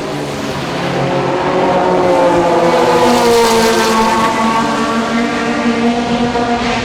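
Ferrari F430 GT2 race car's flat-plane V8 at high revs, growing louder as it approaches, then falling in pitch as it passes and draws away.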